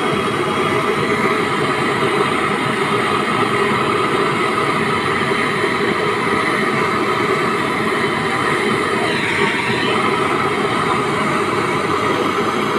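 Brazing torch flame hissing steadily while a visi cooler's evaporator capillary tube is brazed.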